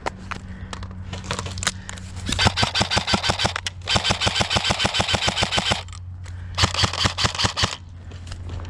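Airsoft electric gun firing on full auto: three bursts of rapid shots, the first starting about two seconds in, the longest about two seconds, with a few single clicks before them.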